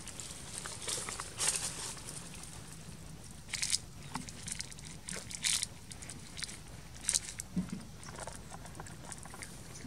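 Dry leaves and gravel crackling and rustling in short, scattered bursts, with a few louder sharp crackles spread through.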